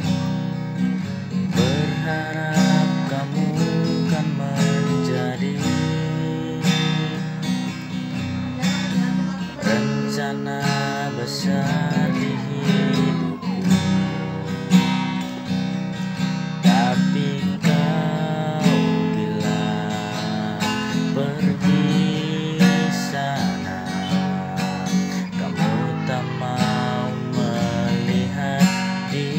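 Acoustic guitar strummed in a steady rhythm, playing chords without a break.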